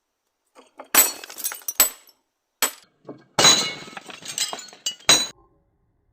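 A brittle frog figurine smashed with a mallet: two faint taps, then five sharp blows, each followed by clinking and rattling of breaking pieces. The longest crash comes about halfway through.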